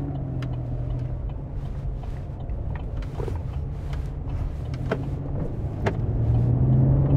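Chevy Colorado pickup driving while towing a travel trailer, heard from inside the cab: a steady engine and road drone that grows louder near the end as the truck speeds up. A few scattered light clicks or rattles sound over it.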